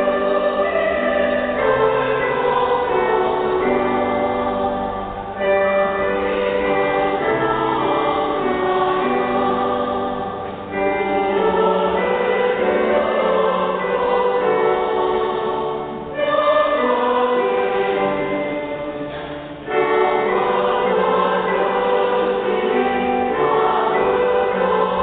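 Church choir singing a hymn with electronic keyboard accompaniment, in long held phrases with short breaks between them.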